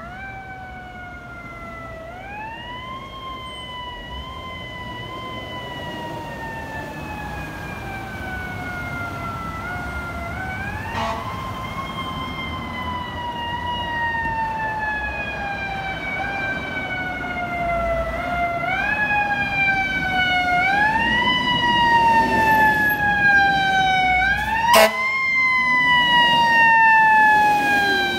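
Fire engine siren wound up again and again, each time rising quickly in pitch and then gliding slowly down, in the manner of a mechanical siren. It grows steadily louder as the engine approaches. A brief sharp click comes about 25 seconds in.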